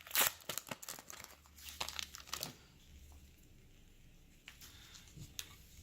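Baseball card pack wrapper being torn open and crinkled, a dense run of sharp crackles that stops about two and a half seconds in, followed by a couple of faint clicks as the cards are handled.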